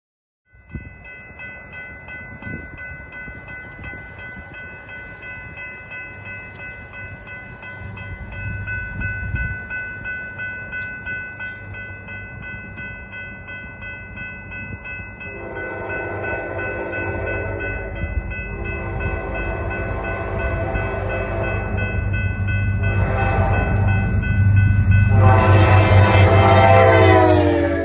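Amtrak passenger train approaching a grade crossing, with a steady ringing from the crossing signal and a low rumble that grows louder. The locomotive horn sounds the crossing pattern of long, long, short, long, the last blast loudest and dropping in pitch as the locomotive passes.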